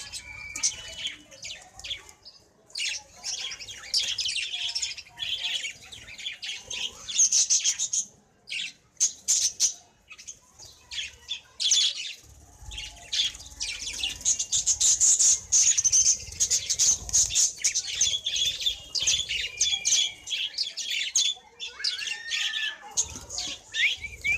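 A flock of budgerigars chattering together: a dense run of rapid high chirps, warbles and squawks, with a couple of brief lulls.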